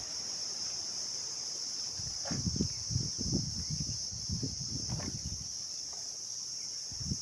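Steady high-pitched insect chorus, with a run of soft, irregular low knocks and scrapes between about two and five seconds in.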